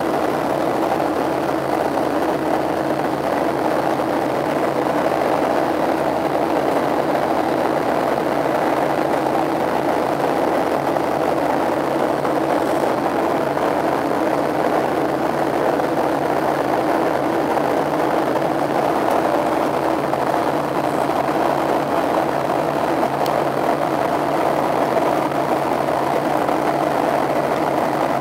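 Steady drone of a Boeing 737-700's CFM56 turbofan engines and rushing airflow, heard inside the passenger cabin in flight.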